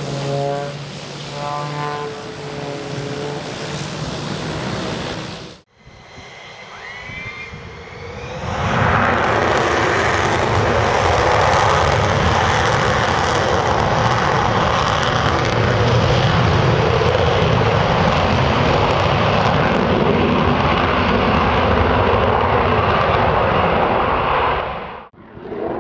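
Aircraft engines running at high power: a loud, steady rush of engine noise lasting about sixteen seconds. It is preceded by a rising whine and set off by abrupt cuts to other engine sounds about six seconds in and near the end.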